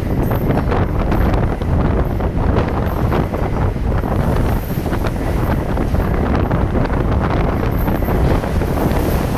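Strong wind buffeting the microphone aboard a ferry in high winds: a loud, steady, gusting rumble.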